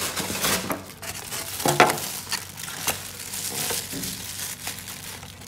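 Plastic food bags rustling and crinkling and white styrofoam clamshell boxes being handled and snapped shut as biryani is packed into them by hand, in a series of short irregular rustles and clicks.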